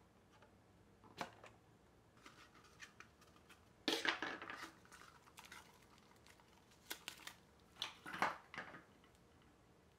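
Handling sounds of a Fossil Gen 6 Hybrid smartwatch being taken out of its cardboard box: light clicks, then a short scraping rustle about four seconds in as the watch and its insert are pulled free, and more clicks and scrapes near the end as the metal watch and mesh strap are handled.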